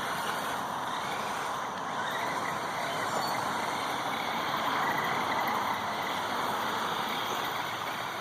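Redcat Volcano RC monster truck's drivetrain running on its new gears: a steady rasping whir that swells a little near the middle.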